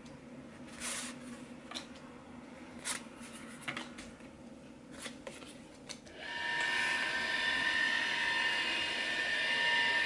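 A few faint clicks at a desk, then about six seconds in a flatbed scanner's motor starts and runs with a steady whine as it begins a scan.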